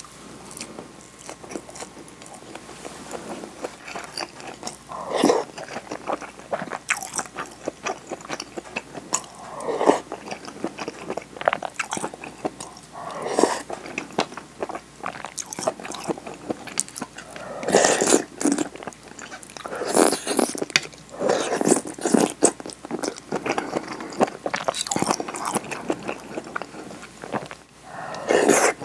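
Close-up eating: biting and chewing a nori-wrapped rice ball, with wet mouth clicks, then sips and mouthfuls of wakame miso soup taken from the bowl, which come as loud bursts every few seconds.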